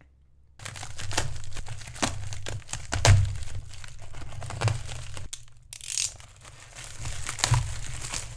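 Plastic bubble mailer being slit with a utility knife and pulled open by hand, the plastic crinkling and rustling, with a few heavier thuds from handling the package.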